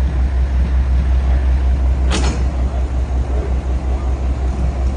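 Mack MR garbage truck's diesel engine idling with a steady, rapidly pulsing low rumble. A brief sharp noise about two seconds in.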